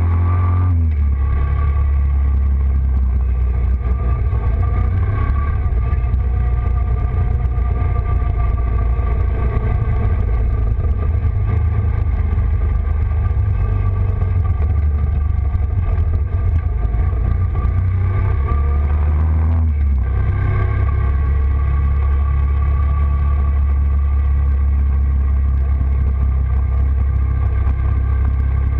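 A four-wheeler ATV engine running steadily as the quad is ridden along. The engine note dips briefly about two thirds of the way through, then picks back up.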